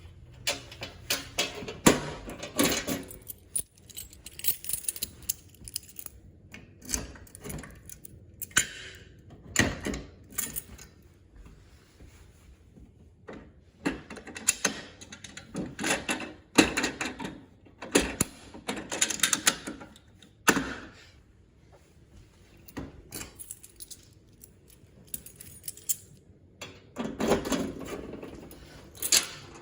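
Irregular bursts of jingling, rattling and clattering, like small metal objects being handled, with quiet gaps between them. The bursts are densest in the middle and there is a loud one near the end.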